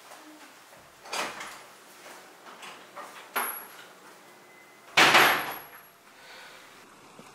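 A wooden door being opened and shut, with a few short knocks and rattles. The loudest comes about five seconds in and fades over about half a second.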